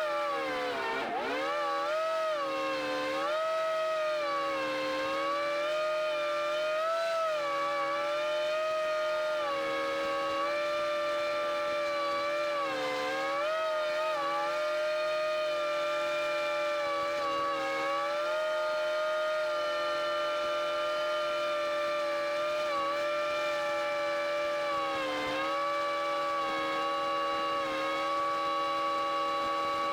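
Airboat engine and propeller running under way, a steady pitched drone whose pitch dips and climbs back several times as the throttle is eased and opened again.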